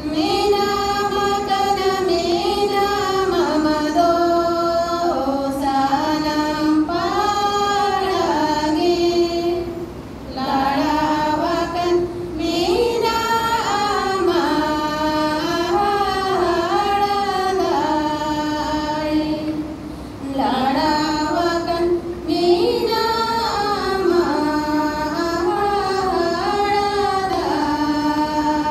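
A group of women singing one melody together into microphones over a public-address system, in repeating phrases with short breaks between them.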